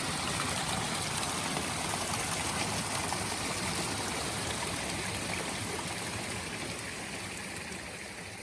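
Steady rush of flowing water, slowly fading near the end.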